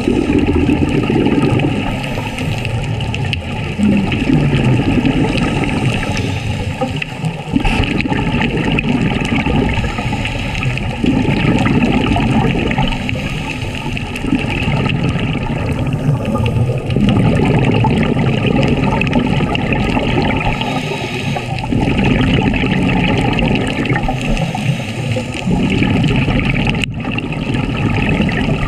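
Scuba diver breathing through a regulator, heard underwater: exhaled bubbles gurgle up in swells every three to four seconds over a steady watery hiss.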